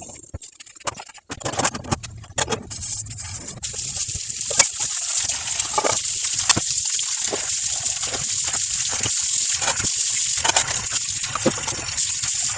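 A few knocks and clicks, then water starts running steadily about four seconds in and keeps going, with small clicks over it.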